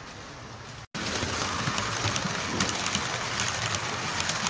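A model railway train running past at close range on a layout: a steady rolling rumble with frequent light clicks from the wheels on the track. It starts suddenly just under a second in, after a quieter room background.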